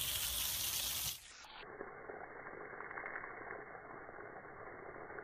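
Water spraying from a garden hose nozzle, a steady hiss. About a second in it drops to a faint, muffled hiss.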